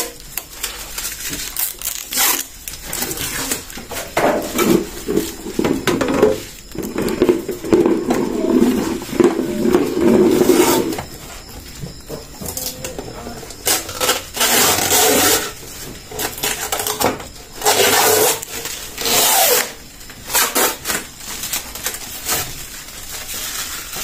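Protective plastic film being peeled off and crumpled, crinkling and rustling in irregular bursts. The clear plastic door bins and shelves of a new refrigerator knock and rub as they are handled.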